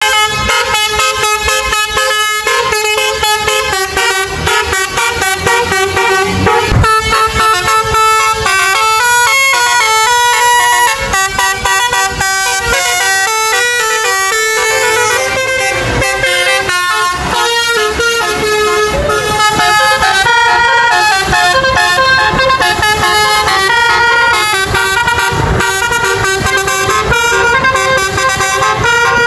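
Bus 'basuri' melodic air horns playing tunes: a continuous run of loud, steady horn notes stepping up and down in pitch, one phrase after another.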